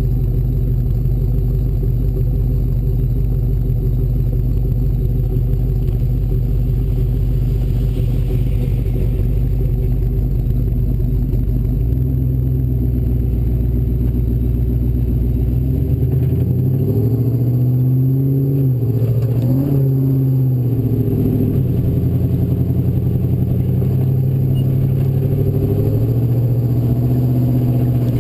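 Off-road race Bronco's engine pulling at a steady pitch. Then, about two-thirds of the way through, it revs up and down a few times before settling again.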